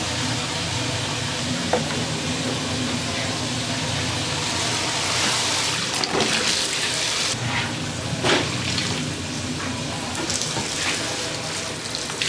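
Water running steadily from a tap, with a few brief knocks.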